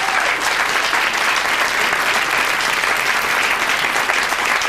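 Audience clapping steadily in a dense, loud round of applause for a card stuck into a watermelon.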